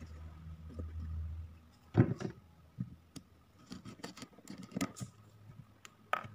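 Kitchen knife and food handled on a wooden cutting board: a sharp knock about two seconds in, then scattered light taps and clicks as the knife cuts into a sausage.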